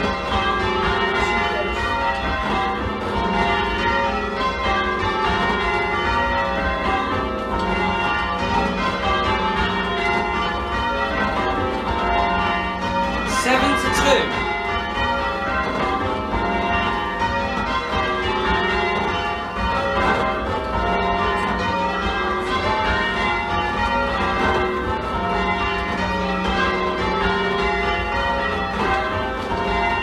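A ring of eight church bells in F with a 15 cwt tenor, rung full-circle in change ringing, the strokes following one another in continuous even rows. The two trebles sound a little shrill, as they were not tuned to match the back six. A short, louder sound cuts in about halfway through.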